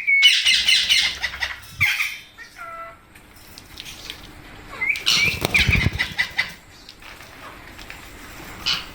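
Rose-ringed parakeets flapping their wings in bursts, about the first two seconds and again around five to six seconds in, with a few short calls between.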